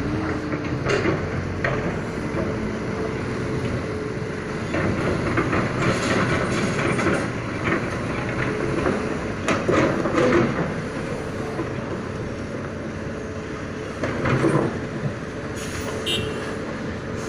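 Hitachi excavator running with a steady engine and hydraulic drone, with clanks of metal about a second in, around six and ten seconds in, and near the end.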